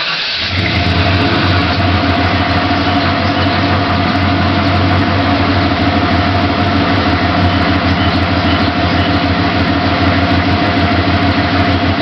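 Ford F-150 idling through a Flowmaster 40 muffler and 2.5-inch pipe with a stainless steel tip, stock headers and only the first catalytic converter left. A steady, deep exhaust note that settles in just after the engine starts.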